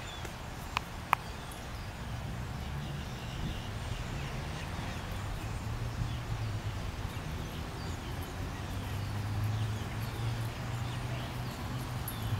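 Outdoor ambience: a steady low rumble, with two sharp clicks about a second in and faint, scattered high chirps.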